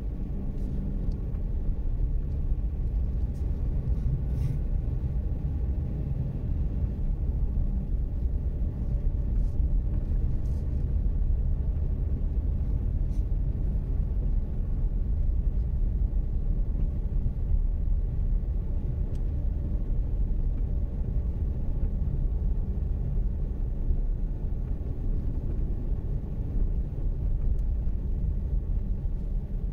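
Haval Jolion car driving, giving a steady low rumble of engine and road noise, with a few faint light ticks.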